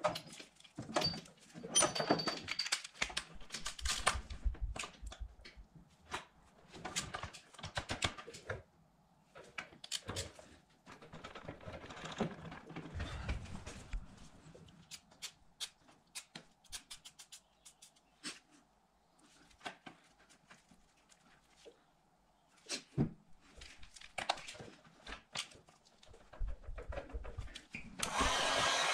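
Irregular clicks, knocks and rustles of tools and parts being handled on a motorcycle's front sprocket. Near the end a heat gun switches on and runs with a steady blowing hiss.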